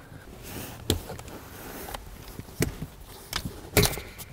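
Light knocks and clicks as the car's rear seat lower cushion and a cordless tool are handled, with a few separate taps and a sharper knock near the end.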